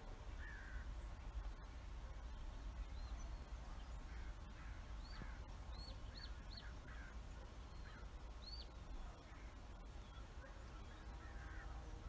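Crows cawing repeatedly in short bouts, with short high, arched calls mixed in, over a low steady rumble.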